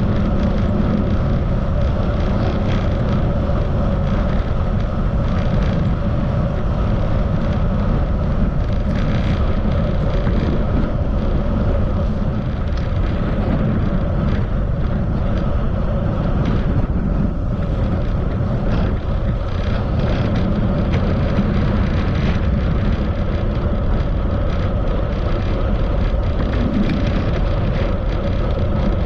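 Steady wind rushing over the microphone of a camera on a moving bicycle, a constant low rumble mixed with road noise and a faint steady hum.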